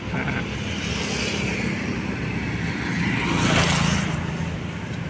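A motor vehicle driving past on the adjacent road: a steady engine hum with tyre and road noise that swells to a peak about three and a half seconds in, then fades.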